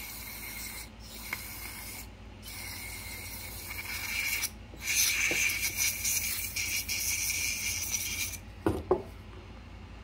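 Aerosol carburetor and choke cleaner spraying through its extension straw into a Stihl MS 290 chainsaw's carburetor, cleaning it out as a cure for hard starting. The hiss comes in four bursts with short breaks, the last and loudest lasting about three seconds before it stops.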